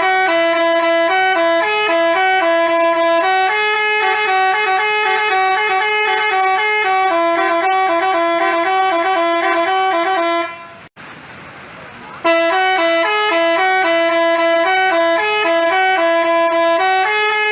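Bus 'telolet' Basuri multi-tone horn playing a quick tune of stepping, alternating notes, several sounding at once. It stops about ten seconds in and starts up again about two seconds later.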